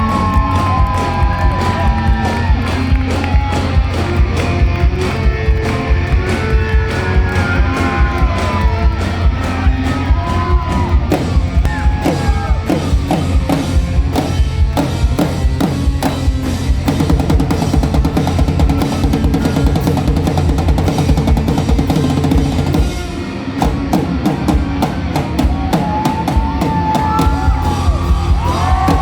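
Live rock drum kit played fast and hard, dense snare, bass drum and cymbal hits, with pitched sliding tones above it from guitar or voices. The drumming eases for a moment about 23 seconds in, then picks up again.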